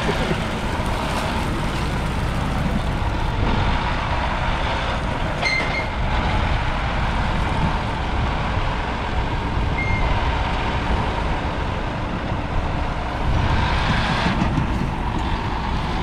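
John Deere 6155R's 6.8-litre six-cylinder diesel engine running steadily, getting louder for a while about thirteen seconds in. Two short high beeps, one about five seconds in and one near ten seconds.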